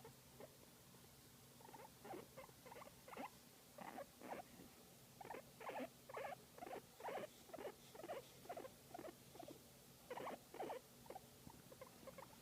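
Guinea pig making quiet, short squeaks repeated in runs of about two or three a second, with brief pauses, while being massaged: contented vocalising.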